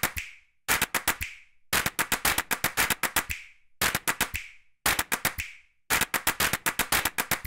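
Quick clusters of sharp clicks, about one cluster a second with short silences between, each cluster ending in a brief ringing tail. They are typing-style click sound effects.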